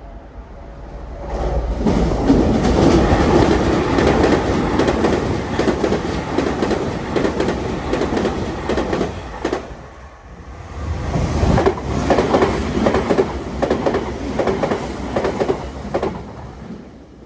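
Tokyu Meguro Line electric commuter trains passing a level crossing at high speed, wheels clicking rapidly over the rail joints. The sound swells about a second in, dips briefly near the middle, then swells again as a second train goes by, and fades near the end.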